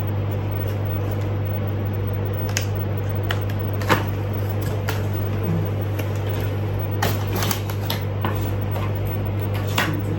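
Scattered light clicks and taps of small objects being handled, the sharpest about four seconds in and a quick run of them around seven to eight seconds in, over a steady low hum.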